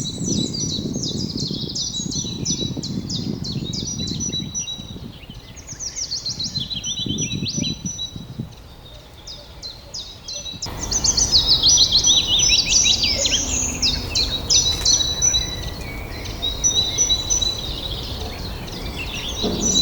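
Several songbirds chirping and singing, with rapid repeated notes and trills, over a low rumbling background noise. The background changes abruptly about ten seconds in, after which the birdsong is loudest.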